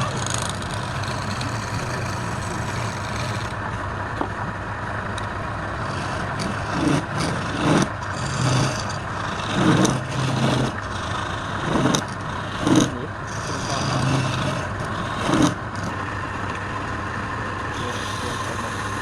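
A motor running steadily with a constant hum, with a run of about eight short, louder bursts in the middle.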